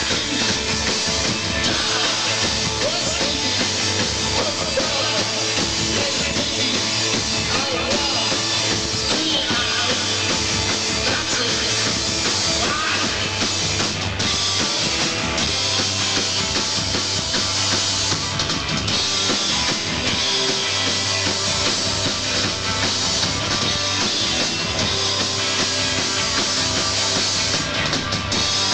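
A rock band playing live, drum kit driving a loud, dense, steady wall of sound.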